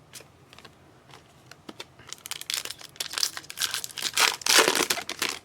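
Crinkling and tearing of a foil trading-card pack wrapper being ripped open and handled, starting as a few faint rustles and turning into dense crackling about two seconds in.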